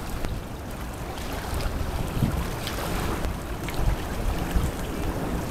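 Sumida River water lapping and splashing in irregular bursts, with wind rumbling on the microphone.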